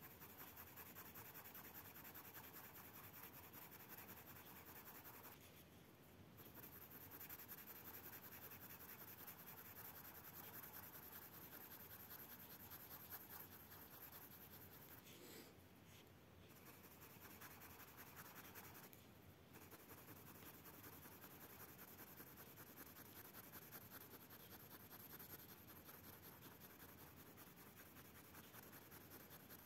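Faint scratching of a colourless blender pencil rubbed back and forth over a layer of wax-based coloured pencil on drawing paper, blending the pigment, with a few short pauses.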